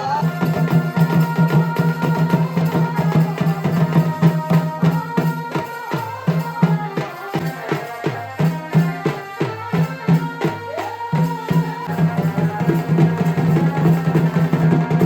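Traditional folk music with fast, dense drumming and a wavering melody line over a steady low drone, the kind that accompanies a Purulia Chhau dance.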